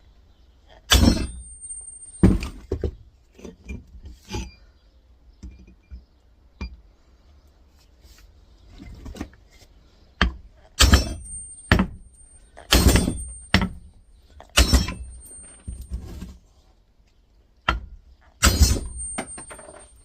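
Big hammer striking the back of an axe head to drive it through an electric motor's steel stator: about eight heavy metal-on-metal blows at uneven intervals, several leaving a short high ring, with quieter knocks and clatter between them.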